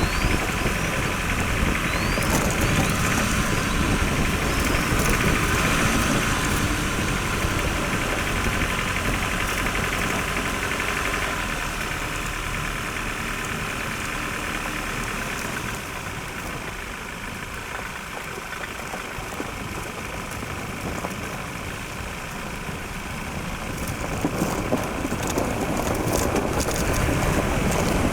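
Ford Ranger FX4 pickup's 2-litre turbodiesel engine running as the truck drives, with steady road noise. Scattered ticks and crunches come in near the end.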